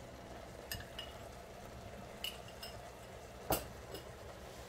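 A spoon stirring sauce in a nonstick pan, making a few light clinks and one sharper knock about three and a half seconds in. A faint steady simmer runs underneath.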